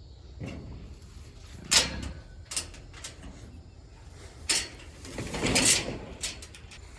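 Metal pipe gate being unlatched and swung open: several sharp clanks, the loudest about two seconds in, and a longer rattling scrape a little after five seconds.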